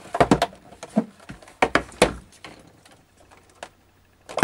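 Clicks and knocks of a black plastic computer case being handled, turned over and set down on a workbench, most of them in the first two seconds, then a couple of faint ticks.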